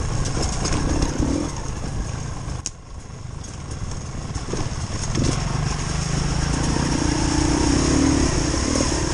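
Long range trials motorcycle engine running at low revs on a trail. The engine note falls away sharply just under three seconds in, then picks up again and runs steadily.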